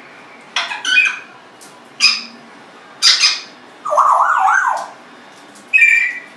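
Congo African grey parrot giving a string of about five short squawks and whistles with pauses between them, including a wavering call around the middle and a clear whistle near the end.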